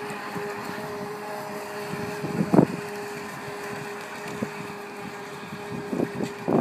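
Motor of a Traxxas radio-controlled speedboat whining at a steady pitch as it runs across the water some way off, fading out near the end. Wind buffets the microphone throughout, hardest about two and a half seconds in.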